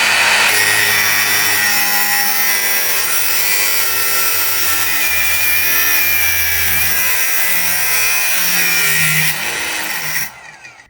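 Mini angle grinder running with its disc grinding into emery, a steady loud grinding noise with a faint whine. It drops off about ten seconds in as the tool is stopped.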